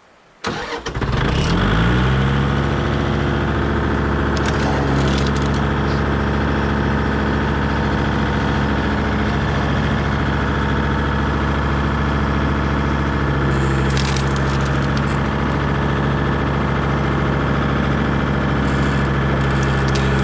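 Kubota tractor's diesel engine starting about half a second in, its speed rising and settling within a second or so, then running steadily.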